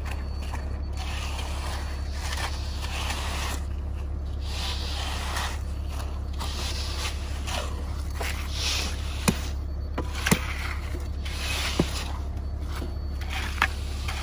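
A concrete rake and a screed board scraping through wet concrete as it is spread and levelled, in repeated swishing strokes. There are four sharp knocks in the second half, over a steady low hum.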